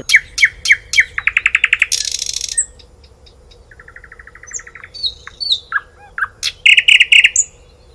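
Nightingale singing a varied song: phrases of rapid repeated notes and trills, a high buzzy phrase about two seconds in, a softer, slower trill around the middle, and a fast loud run of notes near the end.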